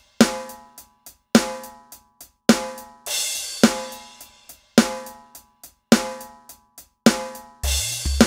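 Background music led by a drum kit: a strong ringing hit about once a second, light hi-hat ticks between, and a cymbal wash about three seconds in and again near the end.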